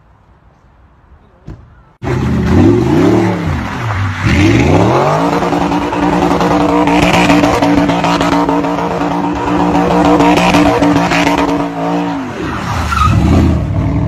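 Audi R8 engine revving hard as the car slides and spins its tyres on a snowy lot. The engine's pitch swings down and up twice, holds at high revs for about seven seconds, then drops and climbs again near the end. Before that, for about two seconds, there is only faint background noise and a single click.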